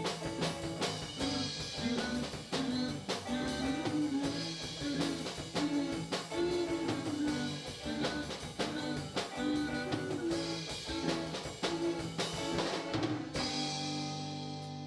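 Live rock band playing, drum kit and electric guitars keeping a steady beat; about 13 seconds in the drums stop and a held chord is left ringing and slowly fading, the end of the song.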